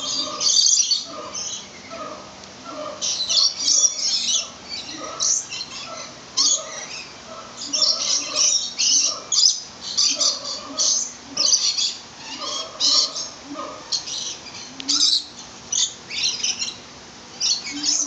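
A chorus of aviary birds, parrots among them, chirping and squawking without pause: many short high chirps overlap, with lower calls repeating underneath.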